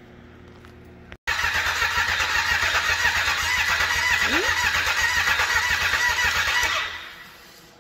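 Turbocharged Yamaha Apex snowmobile engine being cranked over on its starter, with a fast, even chugging, for about five and a half seconds without catching. It stops near the end. A faint hum before an abrupt cut about a second in.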